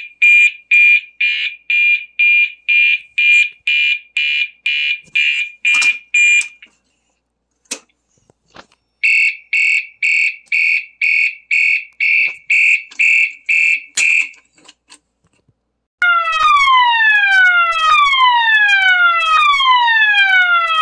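Fire alarm horns sounding: a fast, loud pulsing high tone for about six seconds, then after a short pause a second pulsing high tone for about five seconds. After another pause a different alarm tone starts, a falling sweep that repeats about once a second.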